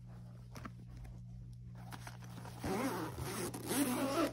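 Zipper on a fabric pet carrier being pulled, a scratchy run of sound starting about two and a half seconds in and carrying on to the end, with a brief pause partway.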